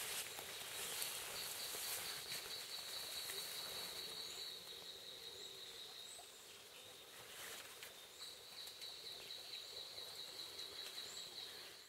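Rainforest ambience in the rain: a steady high-pitched insect trill starts about a second in, breaks off around the middle and comes back about 8 seconds in. It sits over an even hiss with a few faint short chirps.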